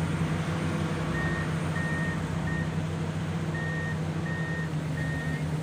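Heavy diesel equipment running steadily while a machine's high-pitched warning alarm beeps about once every 0.7 seconds. The beeping starts about a second in and pauses briefly midway.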